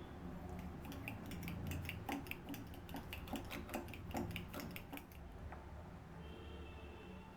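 Utensil clinking against kitchen dishes in a quick, uneven series of clicks that lasts about four and a half seconds and then stops.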